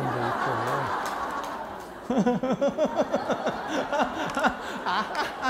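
Audience laughing, then a man laughing into a microphone in quick repeated bursts from about two seconds in.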